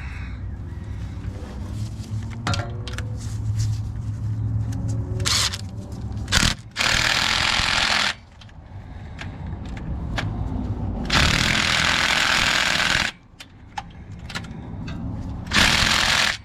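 A power tool running in three bursts of one to two seconds each, with clicks and clanks of hand tools between them.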